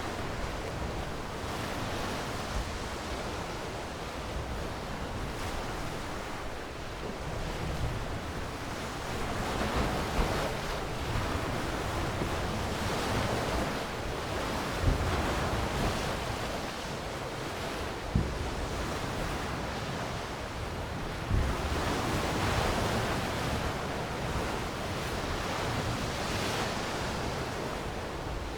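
Sea waves washing on a shore, the surf swelling and easing every few seconds, with a few brief low thumps of wind on the microphone.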